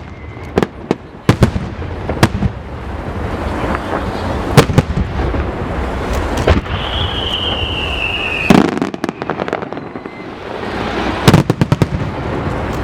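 Aerial fireworks going off: repeated sharp bangs and crackling. Near the middle, a high whistle falls slightly in pitch for about a second and a half and is cut off by a loud bang.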